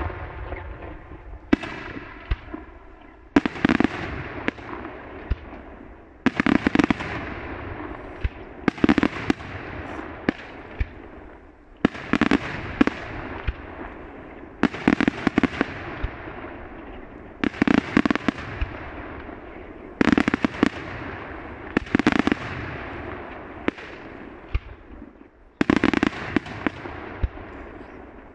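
Daylight fireworks shells bursting in the sky one after another, roughly every two seconds. Each burst is a quick cluster of sharp bangs that trails off over a second or two.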